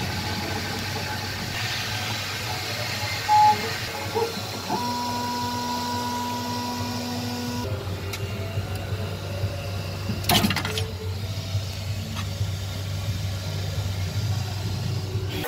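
Flashforge Creator Pro 3D printer running, its fans and motors humming steadily. A short loud beep comes about three seconds in, two steady motor tones are held for about three seconds midway, and a sharp knock sounds about ten seconds in.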